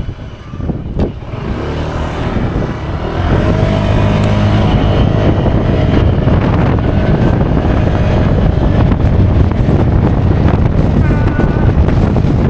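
Honda PCX scooter's single-cylinder engine running under way, with road and wind rumble. Quieter for the first few seconds, then louder and steady from about three seconds in.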